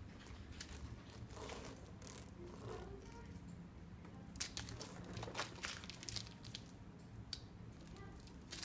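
Clear plastic wrapping crinkling and a gold-tone metal chain strap clinking as mini shoulder bags are handled, in irregular rustles and small clicks.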